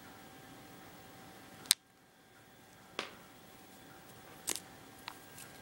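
Tangled audio/USB cable of a mini speaker being untangled by hand: a few sharp clicks and knocks, the loudest about two seconds in, over a steady faint hiss.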